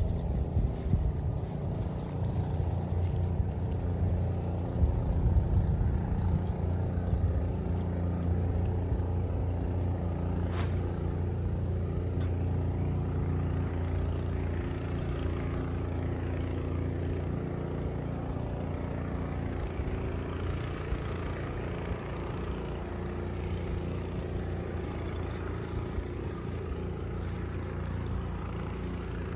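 An engine running steadily with a low, even drone. A single sharp click comes about ten seconds in.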